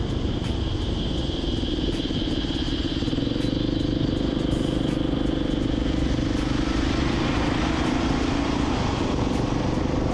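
Steady driving noise from a moving road vehicle: engine hum and road noise with no pauses. The engine note shifts slightly a few seconds in and again near the end.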